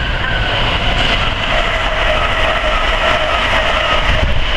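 Virgin Trains Class 221 Super Voyager diesel-electric train passing through the station: a loud, steady rumble of engines and wheels on the rails, with a faint whine running through it in the middle.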